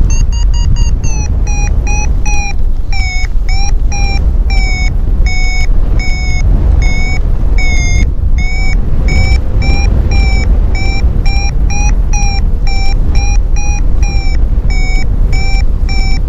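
Paragliding variometer beeping in a fast train of short, even beeps, signalling a climb in weak thermal lift. Heavy wind noise on the microphone runs underneath and is the loudest part.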